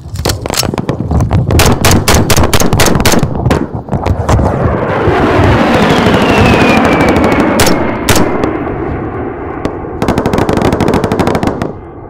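Rapid small-arms and machine-gun fire, many shots close together, then an A-10 Warthog's twin turbofan jets passing low overhead with a loud roar and a falling whine. About two seconds before the end a dense burst of rapid fire breaks out and stops abruptly.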